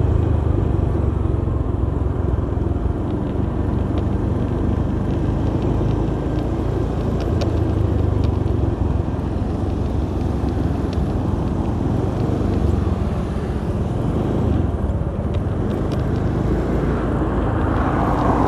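Honda BeAT scooter riding along at a steady pace, its small single-cylinder engine running under a steady rush of road and wind noise.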